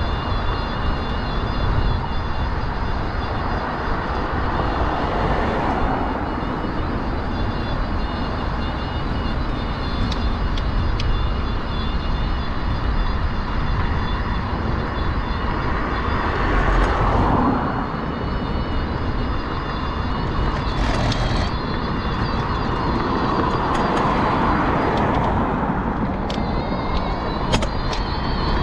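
Mobility scooter running along a roadside path: a steady rumble with a thin high electric-motor whine. Several cars pass on the road alongside, the loudest about halfway through and again near three-quarters of the way.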